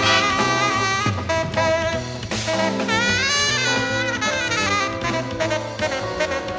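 Live jazz big band playing, a tenor saxophone lead over brass, bass and drums. About three seconds in, a long swooping bend in pitch rises and falls.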